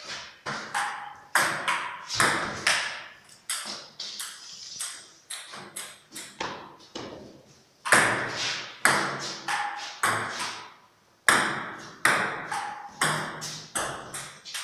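Table tennis rally: the celluloid ball clicking off paddles and the table in quick alternation, two or three hits a second. Play stops twice briefly, just before eight seconds in and again around eleven seconds, and each new rally opens with a loud hit.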